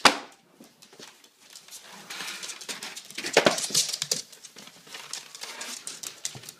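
A dog handling a styrofoam takeout box, giving an irregular scraping and crinkling with a louder crunch about three and a half seconds in.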